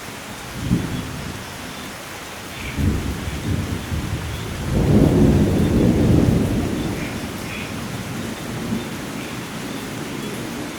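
Thunder rumbling over steady rain: a couple of short low rolls, then a longer, louder rumble about halfway through that slowly fades. Faint bird chirps sound here and there over the rain.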